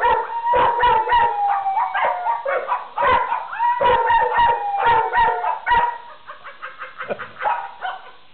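Dogs 'singing': long howls that slide down in pitch, mixed with quick yapping barks. After about six seconds the calls thin out and grow quieter.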